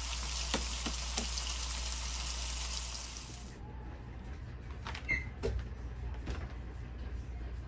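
Breaded pork chop sizzling as it shallow-fries in hot oil in a stainless steel skillet, a steady crackling hiss. About three and a half seconds in the sizzle cuts off suddenly, leaving a low hum and a few faint clicks.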